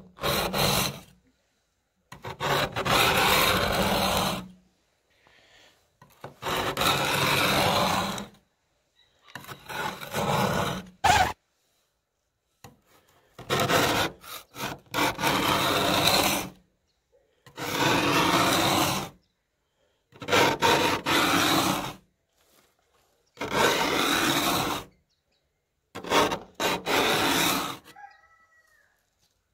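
Thin metal scraper blade scraping a thick layer of frost off a car window, in about ten rasping strokes separated by short pauses, with a sharp click about eleven seconds in.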